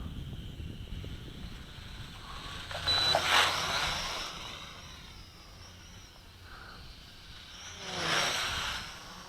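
Small HT F801C quadcopter's motors and propellers whining, swelling twice, about three seconds in and again about eight seconds in, as it flies close, its pitch bending with each pass.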